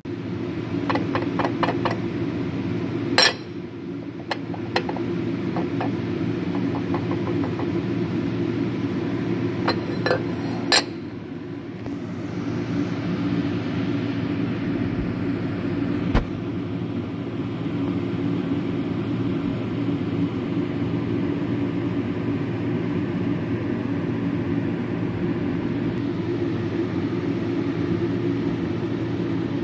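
Metal planing machine running with a steady low drone while cutting a lathe bed, with several sharp metallic clinks during the first ten seconds or so.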